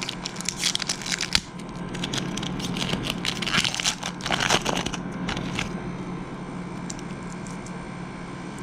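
Foil wrapper of a 2012 Topps football card pack being torn open and crinkled by hand, crackling in short irregular spurts and stopping about five seconds in.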